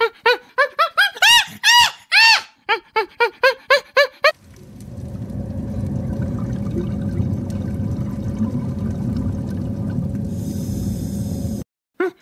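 A rapid series of hooting animal calls, about four or five a second, with a few higher rising-and-falling calls in the middle; they stop a little over four seconds in. A steady rushing, water-like noise follows and cuts off suddenly near the end.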